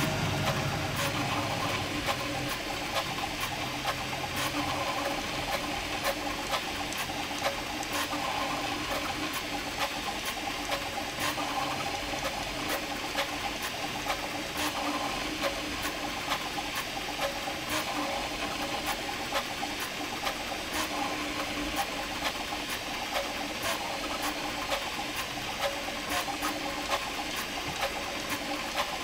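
Prusa MK4 3D printer printing at speed: its stepper motors whir in shifting tones through the print head's quick back-and-forth moves, with frequent short ticks.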